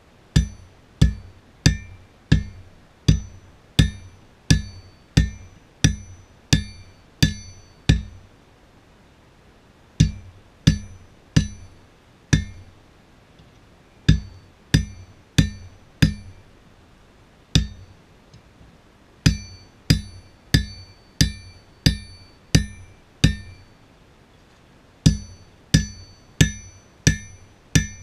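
Hand hammer striking glowing-hot steel on an anvil, about three blows every two seconds in runs of four to twelve with short pauses between. Each blow has a short metallic ring.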